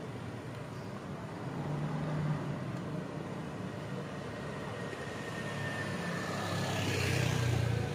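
A motor scooter's engine running as it approaches and passes close by, growing louder to a peak near the end, over a steady low background hum.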